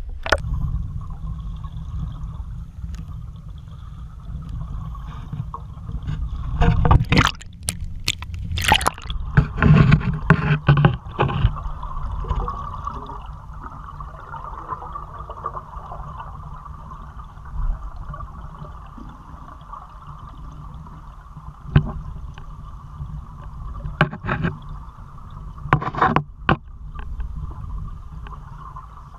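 Water sloshing and gurgling close to the microphone over a steady low rumble. Bursts of louder splashing come from about a quarter of the way in for several seconds, and again a few times in the last third.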